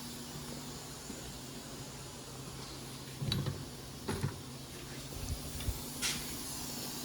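Hand tools knocking against the wheel hub as a socket and handle are worked on the wheel bearing bolts: about five separate short knocks from a few seconds in, over a steady low hum.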